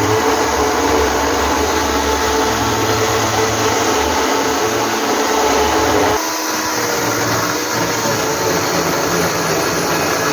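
Small battery-powered electric chainsaw running under load as it cuts wood, a steady motor whine. About six seconds in the sound shifts and drops a little in loudness.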